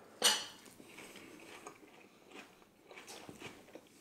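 Biting into and chewing a grilled lamb chop, opening with one sharp, loud crunch just after the start, then faint chewing and small clicks.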